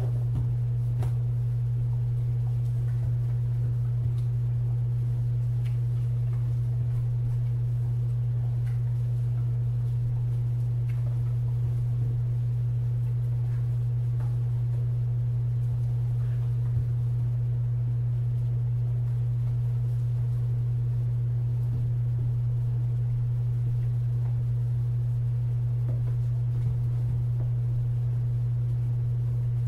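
A loud, steady low hum that holds one pitch without change, with a faint higher tone above it and a few faint soft clicks beneath.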